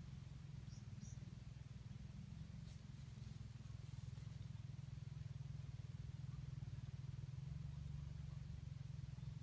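Faint, steady low rumble with two short, high peeps about a second in and a few faint ticks a little later.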